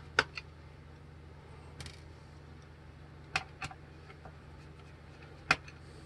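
Scattered sharp clicks and light taps, about six in all, of a small screwdriver and fingers working the screws and panel on a laptop's metal-and-plastic underside, over a faint low steady hum.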